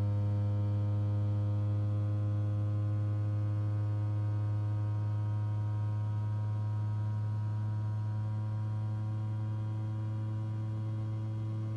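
Rivian R1T cabin fan running with a steady, strong low hum and many overtones above it, sinking slightly in pitch and level as it goes.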